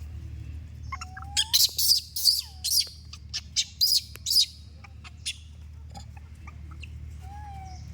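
A monkey's shrill squeaks, a quick run of about a dozen short high calls with a few lower gliding coos mixed in, from about a second in to about four and a half seconds, then one more squeak.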